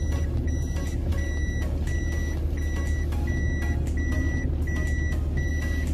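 Inside a moving car: a steady low engine and road rumble, with a high electronic warning beep repeating about every 0.7 seconds.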